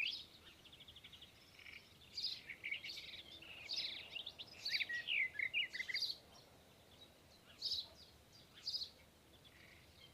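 Black-headed caique parrot chirping, with short high calls and quick up-and-down squeaks in a busy run from about two to six seconds in, then a couple of single calls.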